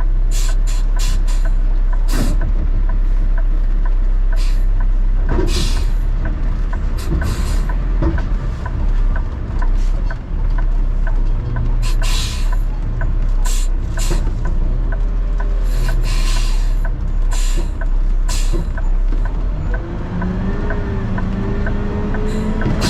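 Heavy diesel truck, likely a garbage truck, running steadily, with a light regular ticking and many short sharp hisses and clanks. Near the end a whine rises and wavers in pitch.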